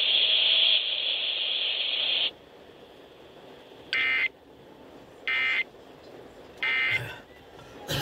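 Emergency Alert System tones played through a Midland weather radio's speaker: a steady high buzzing tone cuts off abruptly about two seconds in, then three short warbling data bursts about a second apart, the end-of-message code that closes the tornado warning broadcast.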